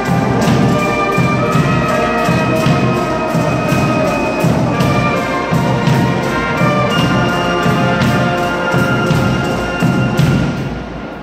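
Brass marching band of trumpets and trombones playing over a steady beat; the music ends near the end.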